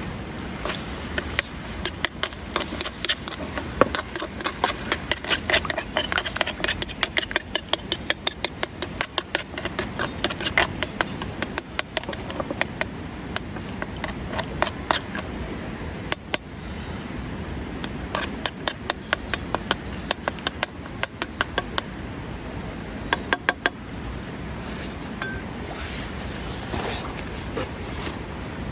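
Steady rain with a constant hiss and many sharp, irregular drop ticks on shelter fabric, coming in thick runs for much of the time.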